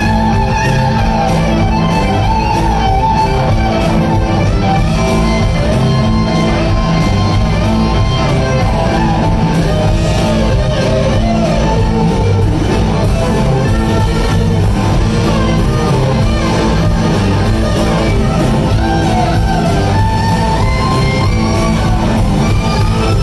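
Live band playing at full volume: electric guitars, bass guitar and drums, with a lead guitar line bending in pitch over the rhythm.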